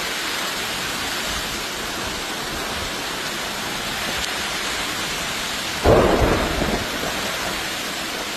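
Heavy rain falling steadily in a strong storm, with a sudden sharp clap of thunder about six seconds in that rumbles away over about a second.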